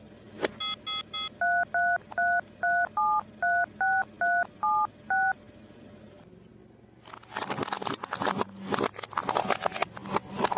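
Toy telephone keypad beeping as its buttons are pressed: three short buzzy beeps, then about ten two-tone dialling beeps, a few per second. A few seconds later comes a dense crackling and crunching as small brittle objects are crushed under a car tyre.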